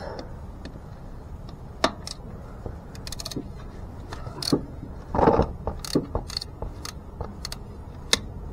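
Irregular metallic clicks and clinks of a hand tool working a motorcycle's oil drain plug loose, with a louder knock about five seconds in.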